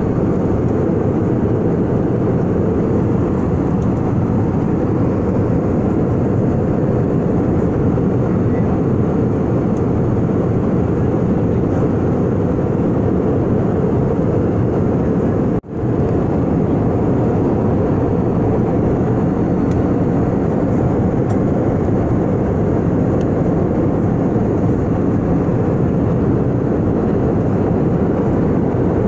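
Steady jet airliner cabin noise in cruise flight, a low, even rumble and rush of engines and airflow. The sound cuts out for a split second about halfway through, then resumes.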